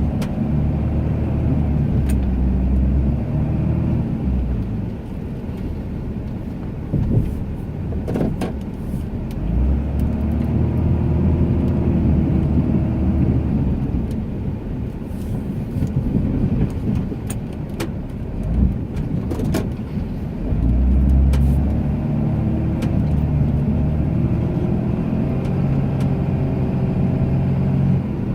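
Ram 2500 pickup's engine working through plowing passes, pulling hard for a few seconds, then easing off, about every ten seconds as it pushes snow. A few sharp knocks come in between.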